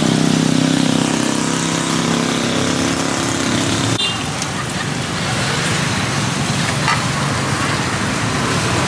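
An engine runs with a steady hum that cuts off about four seconds in, leaving an even hiss of background noise.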